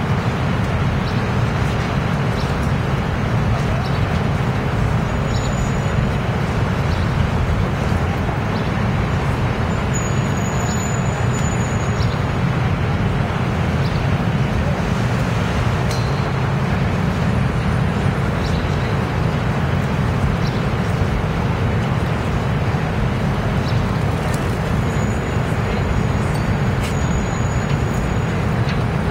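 Steady city street noise: a constant low rumble of traffic with a murmur of passers-by, and a few brief, faint high-pitched whistling tones.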